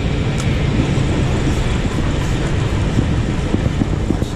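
Boat engine running steadily: a loud, even low drone.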